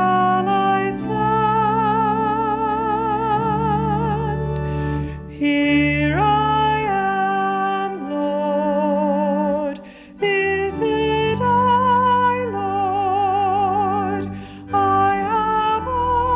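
A woman singing a slow, sustained melody with strong vibrato over held low accompaniment notes, in phrases separated by brief pauses.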